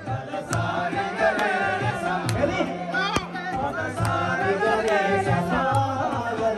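Live song: a man singing an ornamented melody into a microphone while playing a harmonium, over a steady low drum beat of about two strokes a second.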